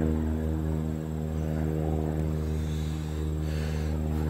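Floatplane's piston engine and propeller droning steadily as it flies by overhead.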